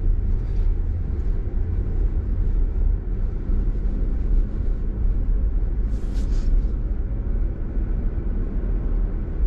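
Jeep Wrangler running on the trail, a steady low rumble from the engine and drivetrain, with a brief hiss about six seconds in.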